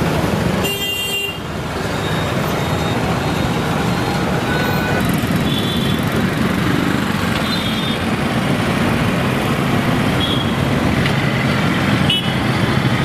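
Street traffic: the steady noise of passing road vehicles and engines, with a few short horn toots.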